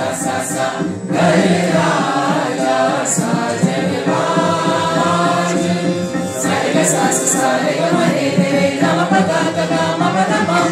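A mixed group of men and women singing together, accompanied by a harmonium holding steady tones beneath the voices.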